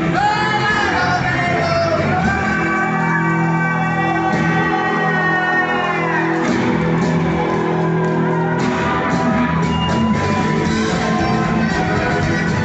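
Live rock band music with a voice singing and shouting over it in long held notes, echoing in a large hall.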